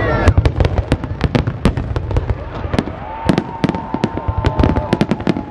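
Fireworks display going off: a rapid, irregular volley of sharp bangs and crackles, several a second. From a little past halfway, a steady high tone is held over the bangs.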